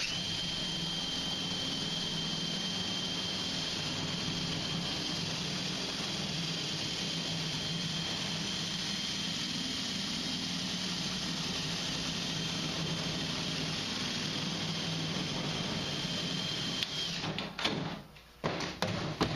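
Electric power tool cutting through the furnace's sheet-metal side panel. Its motor runs with a steady whine and hum and stops about three seconds before the end. A few short clatters of metal handling follow.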